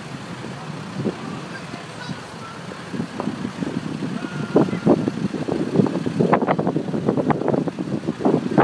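Armoured police vehicle driving past close by, its engine running, with a quick series of sharp knocks and rattles from about three seconds in that grow louder toward the end.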